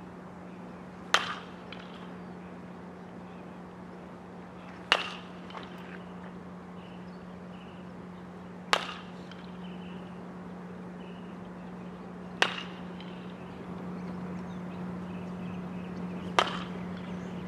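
A baseball bat hitting pitched balls in batting practice: five sharp cracks about four seconds apart, each followed by a fainter knock about half a second later. A steady low hum runs underneath.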